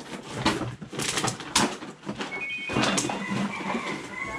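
Plastic bottles and a woven plastic sack being handled and rustled, with irregular crinkling, clattering and short knocks.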